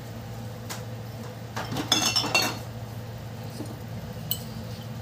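A spoon clinking against glass and dishware while seasonings are measured out: a light click, then a cluster of ringing clinks about two seconds in and one more near the end, over a steady low hum.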